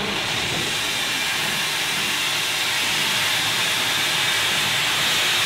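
Steam locomotive standing at the platform letting off steam: a steady hiss that grows a little louder about three seconds in.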